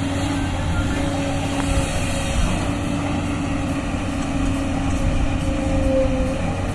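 JCB tracked excavator's diesel engine running steadily under working load while the boom lowers and the bucket digs. It makes a continuous hum whose pitch steps slightly up and down as the machine works.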